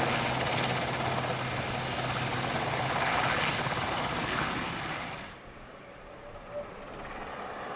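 Aircraft engine running close by, a steady hum over a rushing noise, which drops away sharply about five seconds in.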